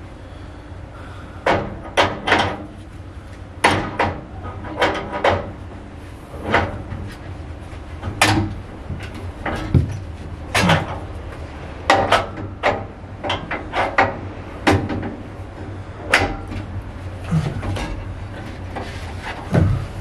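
Irregular metallic clicks and clanks of a spanner and gloved hands working the mounting bolts of a wall-mounted refrigeration evaporator unit as it is taken down. There are about twenty sharp knocks at uneven spacing over a steady low hum.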